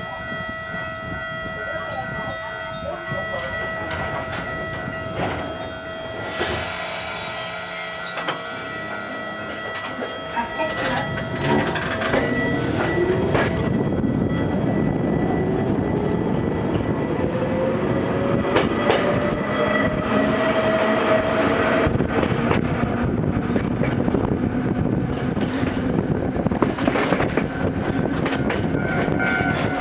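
Gakunan Railway 7000 series electric railcar pulling away from a stop. There is a brief hiss about seven seconds in. From about eleven seconds in the traction motors whine, rising steadily in pitch as the train gathers speed, with the wheels clicking over the rail joints.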